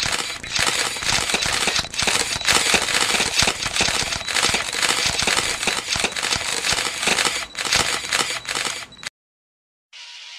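Loud crackling noise: a dense hiss packed with clicks and pops, cutting off sharply about nine seconds in. Just before the end, music begins quietly.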